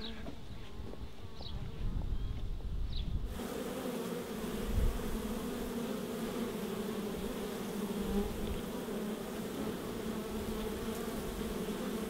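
Honeybees humming at a hive entrance: a steady buzzing drone that sets in about three seconds in and holds level. Before it there is only a low outdoor rumble with a few short high chirps.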